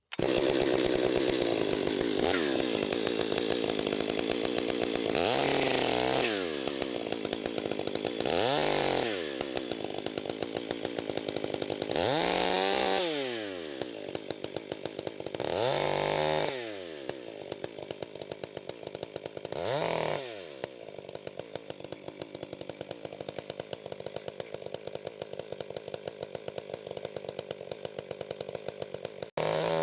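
Chainsaw running and cutting the end off a large log, its pitch rising and falling about five times as it is throttled up and bogs in the wood, then running lower and quieter for the last third.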